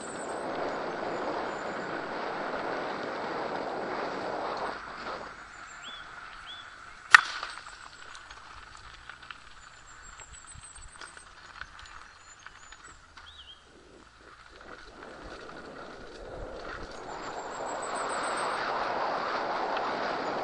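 Mountain bike tyres rolling over a gravel trail: a rustling hiss that drops away in the middle and builds again near the end. A single sharp click about seven seconds in, and a few short high chirps.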